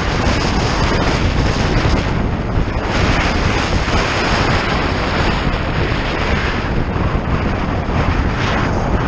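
Loud, steady wind rush over the microphone of a camera on a moving bike, mixed with road noise from riding along the highway.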